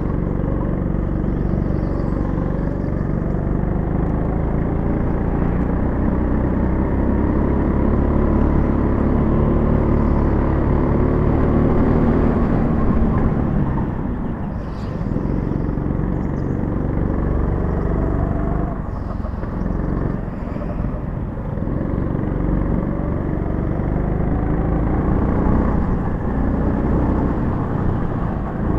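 Go-kart engine running under throttle, heard from on board the kart. Its pitch rises and falls with the laps, dropping briefly about halfway through and again a few seconds later, as it slows for corners.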